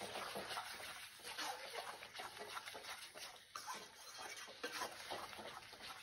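Faint, irregular scraping and clicking of a metal spatula stirring thick tomato-onion masala against the sides of a metal kadai, as the freshly added spice powders are fried into it.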